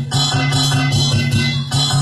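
Music with a steady beat: a held low bass line under high, hissing percussion strokes about twice a second.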